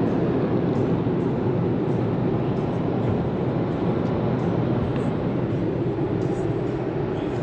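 Steady road and engine noise inside a truck cabin while driving, a constant low rumble with no change.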